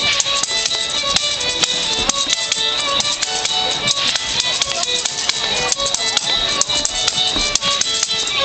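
Live traditional fiddle tune, a bowed melody of short notes, with a tambourine shaken and struck in a steady rhythm, its jingles clicking on the beat.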